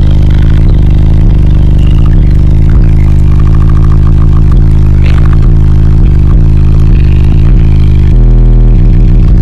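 Bass-heavy music played at extreme volume through a car's subwoofer system driven by B2 Audio Falcon amplifiers, heard inside the cabin. The deep bass notes step from one to the next every second or so, and the sound is near the recording's limit and distorted.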